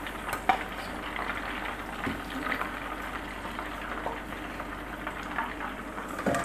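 Hot cooking oil bubbling and sizzling steadily in a frying pan after mince kebabs have been fried in it, with a few light clicks near the start as a wire skimmer lifts the kebabs out.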